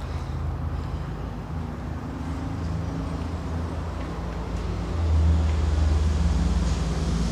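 Low, steady rumble of a motor vehicle's engine, growing louder about five seconds in.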